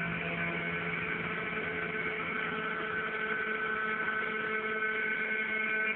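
Steady electrical hum with a few held tones over a faint even hiss, from a television set heard through a phone's microphone.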